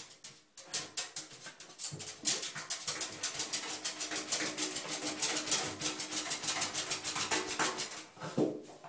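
A corgi digging at a bathtub floor, its claws scraping and clicking against the tub in a fast, unbroken run that starts about a second in and dies away near the end.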